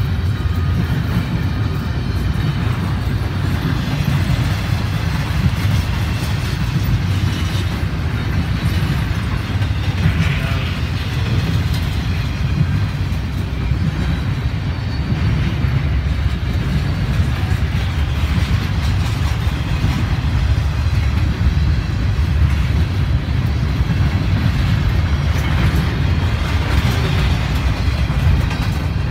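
Empty intermodal well cars of a freight train rolling past: a steady, deep rumble of steel wheels on rail that never lets up.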